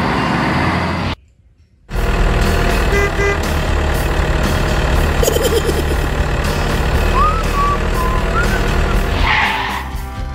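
Steady low engine rumble of a heavy truck, broken by a brief drop-out about a second in. Short beeps come about three seconds in, and a few brief chirping glides near the end.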